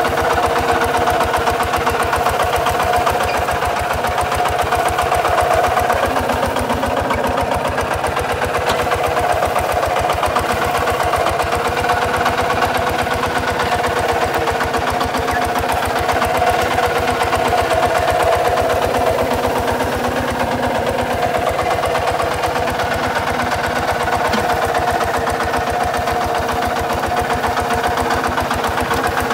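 Kubota RT 140 DI walking tractor's single-cylinder diesel engine running steadily, a rapid even beat of firing pulses, as the tractor works its way across dry, broken ground.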